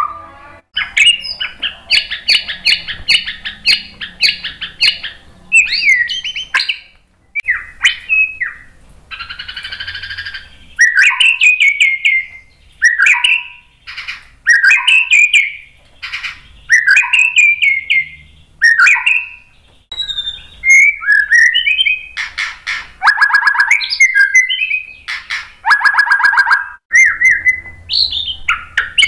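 White-rumped shama (murai batu) singing a loud, varied song. It mixes rapid rattling trills, near the start and again later on, with short whistled phrases that slur downward, and one harsh buzzy phrase about ten seconds in.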